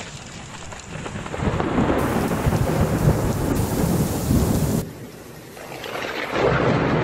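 Thunder rumbling in a heavy rainstorm. One long roll builds and cuts off abruptly just before five seconds, then a second roll swells near the end, with the hiss of rain underneath.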